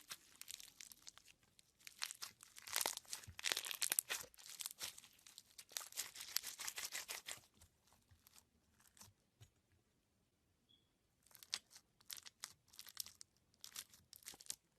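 Knife cutting into a bar of dry soap with crisp, crackling crunches and scrapes. The sound comes in bursts, busiest in the first half. A near-quiet lull in the middle gives way to more short bursts near the end.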